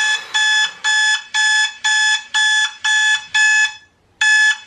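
Recorded electronic alarm clock beeping, about two short high-pitched beeps a second in a steady rhythm. The beeping breaks off for a moment near the end, then starts again.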